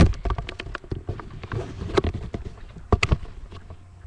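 An irregular run of close knocks, bumps and rustles, handling noise right at the microphone, with the loudest thumps at the very start and around two and three seconds in.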